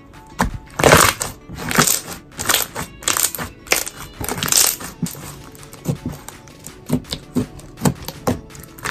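Hands squeezing and kneading thick, fluffy white slime: bursts of crackling, popping squishes, long and close together in the first half, then shorter, sharper pops spaced out. Background music plays underneath.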